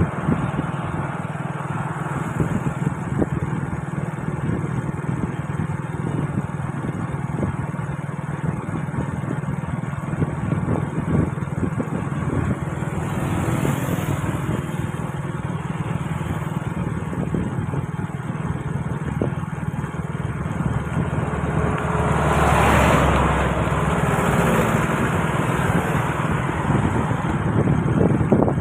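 Motorbike engine running at a steady cruising speed, heard from the rider's seat, with wind and tyre noise. There is a louder whoosh of rushing air about three-quarters of the way through.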